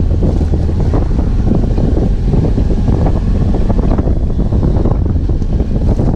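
Wind buffeting the camera microphone on a BMW F 800 GS Adventure motorcycle riding a dirt road, over the steady low drone of its parallel-twin engine and the rumble of tyres on the dirt.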